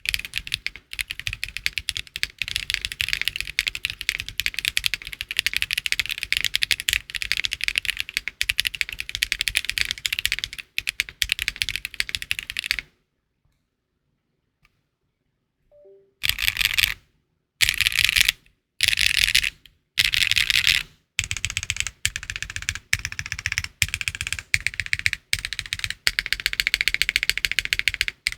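Luminkey 65 custom mechanical keyboard with HMX Hibiscus linear switches on a polycarbonate plate, no foam, and GMK Botanical keycaps, typed on rapidly with a clacky sound. The typing stops for about three seconds around the middle, comes back as four or five short bursts of very fast keypresses, then settles into steady typing again.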